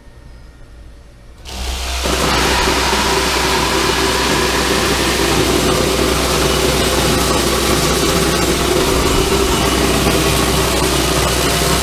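Satake EVOLUTION Model 400 optical sorter starting up about one and a half seconds in, then running with a loud, steady noise and low hum as yellow corn feeds through it.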